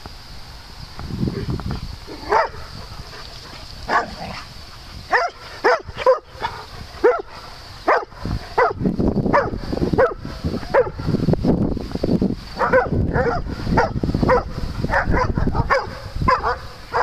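Dogs barking during rough-and-tumble play: short sharp barks, scattered at first and coming thick and fast in the second half.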